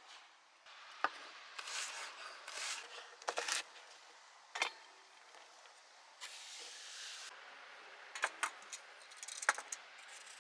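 Kitchen prep work: irregular sharp knocks and short scraping, rustling strokes, with a brief steady hiss a little past the middle.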